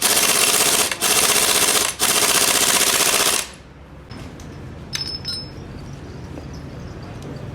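Pneumatic impact wrench rattling in three loud bursts with brief pauses between them, stopping about three and a half seconds in. A few light metal clinks follow.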